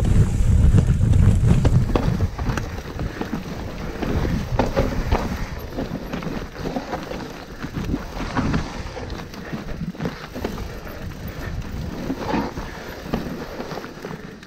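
Mountain bike riding down a rough trail: the tyres and bike rattle and knock over the bumps, with wind buffeting the microphone during the first couple of seconds.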